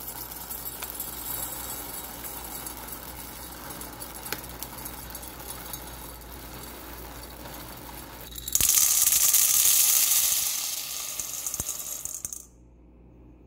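Dried soybeans pouring from a plastic bag into a glass measuring cup, a steady rattle of beans clicking against the glass. About eight seconds in, a sudden, much louder rush of beans pouring into a stainless steel bowl, which tapers off and stops shortly before the end.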